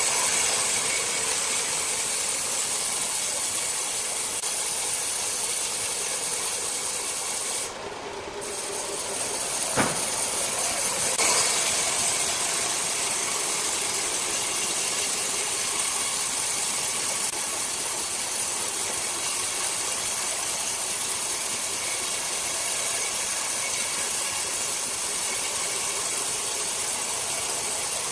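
Large sawmill circular saw cutting through a rosewood block: a loud, steady, hissing rasp with a brief dip about eight seconds in and a single sharp knock about two seconds later.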